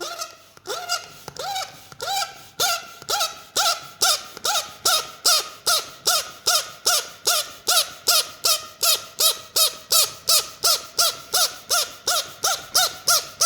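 A bird calling in a fast, steady series, about three short notes a second, each note rising and then falling in pitch.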